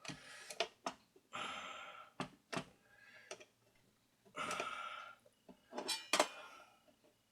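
Clicks, taps and short scraping sounds of tools and small metal parts being handled while a record player's turntable motor is taken apart.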